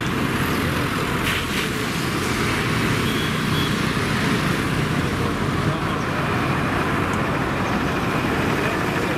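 Steady road traffic noise: cars and motor scooters passing along a street.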